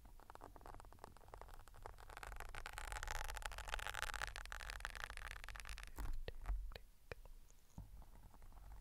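Sewing pins sliding in and out of a foam microphone windscreen right at the mic, a dense crackling scrape that swells in the middle. A few sharp clicks follow near the end.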